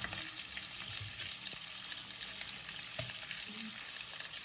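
Mutton pieces frying in hot oil in a wok: a steady sizzling hiss with scattered small crackles.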